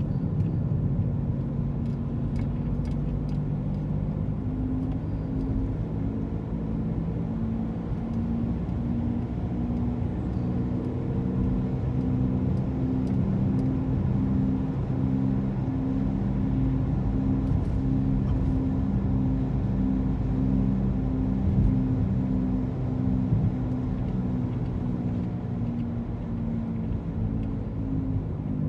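Car running with a steady low rumble and, from a few seconds in, a pulsing hum that beats on and off in a regular rhythm: the strange noise the owner is trying to identify.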